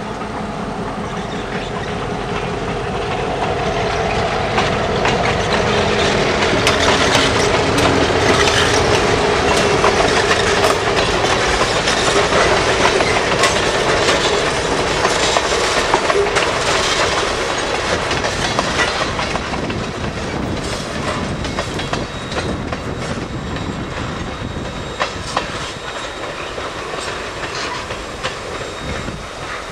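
Freight train of tank cars rolling past close by, its wheels clacking over rail joints in a steady run of clicks. The hum of the diesel locomotive is heard at first and fades, and the train grows slowly quieter as it moves off.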